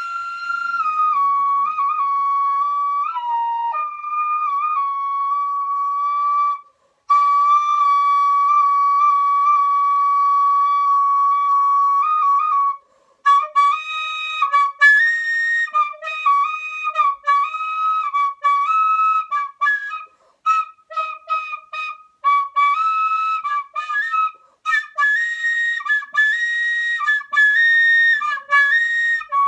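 Recorder played by a beginner: long, high held notes that shift a little in pitch for about the first twelve seconds, with one short break, then a quick run of short, choppy notes.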